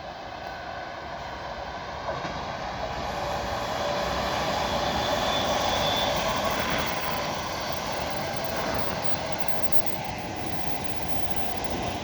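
Helsinki Metro electric train running, a steady rumble with a faint whine that swells to its loudest in the middle and then eases off a little.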